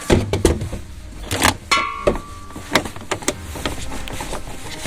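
Gear being handled and a power plug set in place: a string of sharp clicks, knocks and rattles, with a brief metallic ring about two seconds in.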